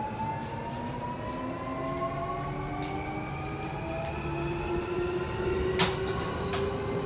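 Keio 1000 series electric train accelerating, heard inside the car: the Toyo Denki IGBT VVVF inverter and its totally enclosed traction motors give several whining tones that rise steadily in pitch together. The wheels add a low rumble and occasional clicks, the sharpest near the end.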